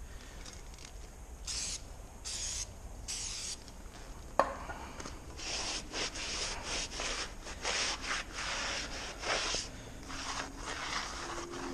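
Scrubbing the face of a car's wheel hub by hand to clear debris before the brake rotor goes on: three short scraping strokes, a sharp click about four seconds in, then a quick run of rubbing strokes.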